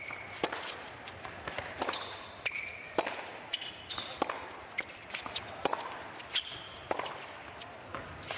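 Tennis rally on an indoor hard court: the ball is hit by rackets and bounces in repeated sharp pops, while shoes give several short, high squeaks on the court surface.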